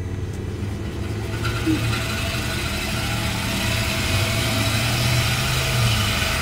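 Car engine idling through its exhaust, getting louder about a second and a half in.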